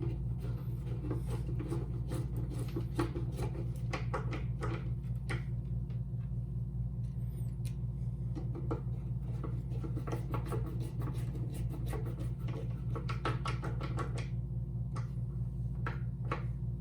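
Light clicks and taps of small metal parts being handled as a door handle and lock are fitted back together, over a steady low hum.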